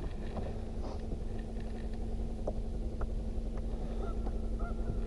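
Wind rumble on the microphone with a steady low hum, and near the end a few faint, short bird calls in quick succession.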